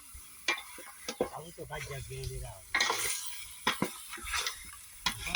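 A utensil stirring and scraping in a pan of sizzling meat, with repeated short clinks against the pan.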